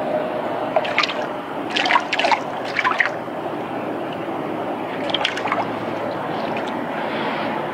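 A hooked fish splashing at the water surface in several short bursts, over a steady hiss.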